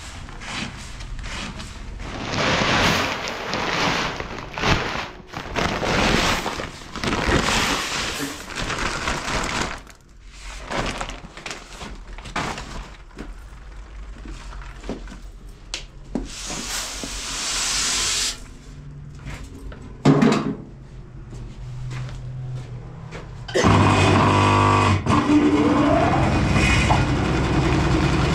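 Irregular bursts of rustling noise, then, about 24 seconds in, a vehicle engine abruptly starts running, rising briefly in pitch and then idling steadily.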